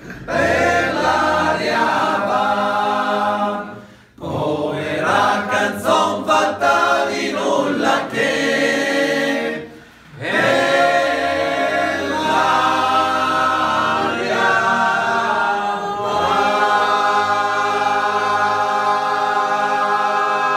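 Group of men singing a song together unaccompanied, with short pauses about four and ten seconds in, then a long held note to close.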